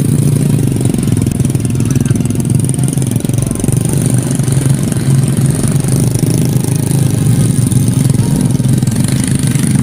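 Motorcycle engines running steadily, from small dirt bikes hauling wooden carts loaded with oil palm fruit bunches.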